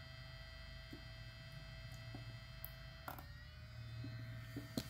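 Faint steady electrical hum with a thin high whine from the spot-welder setup. A few soft clicks come as the welding probes are pressed onto the nickel strip on an 18650 cell, with one sharper click about three seconds in.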